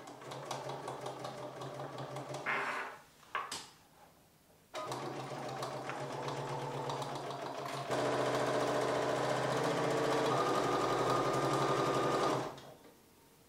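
Bernina sewing machine stitching a seam through cork fabric. It runs for about three seconds, gives a short burst, then runs for a longer stretch that gets louder about eight seconds in before stopping near the end.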